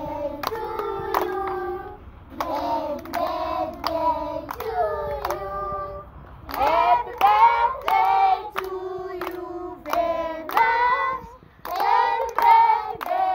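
A group of children singing a song together, clapping their hands in time as they sing.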